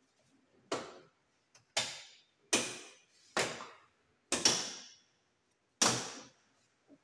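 Six sharp knocks about a second apart, each dying away over about half a second.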